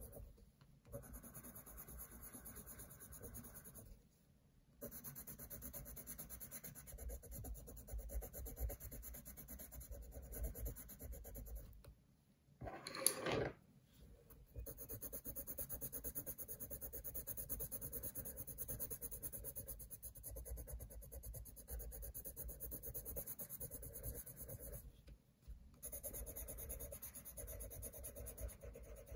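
Coloured pencil scratching on paper as it shades, with a few brief pauses. A short louder noise comes about halfway through.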